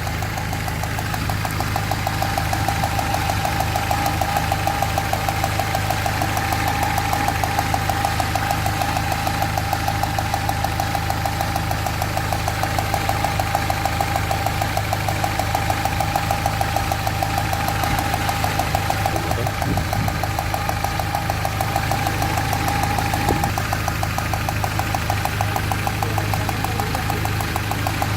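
Peugeot 307's 1.6-litre four-cylinder petrol engine running at a steady speed with an even, rough pulsing beat. A failed ignition coil on cylinder 2 leaves that cylinder without spark, so the engine misfires and runs on three cylinders. A steady high tone runs alongside and fades out a few seconds before the end.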